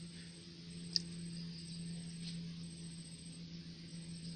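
Quiet background with a steady low hum and faint hiss, broken by one short sharp click about a second in.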